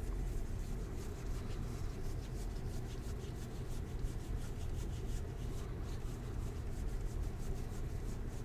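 Baseball trading cards being handled and sorted by hand, the cards sliding and rubbing against one another with faint, irregular ticks.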